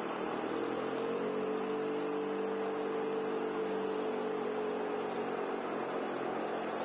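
Steady rushing of muddy floodwater in a desert wash, overlaid by a motor vehicle's engine hum that comes in about half a second in, holds an even pitch, and fades out before the end.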